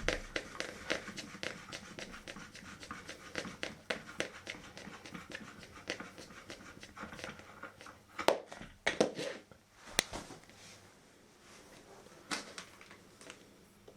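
Rifle being cleaned with a cleaning rod: a quick, even run of push-pull strokes, about three a second, followed by a few louder separate knocks and clicks in the second half.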